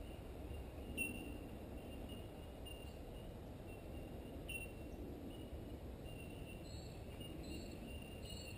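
Bush creek ambience: a steady low hiss with small high chirps repeating throughout, and a short call repeating about once a second over the last two seconds. A faint click about a second in.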